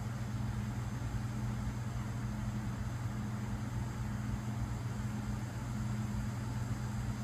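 Steady low machine hum, with a slightly higher tone that cuts in and out every second or so.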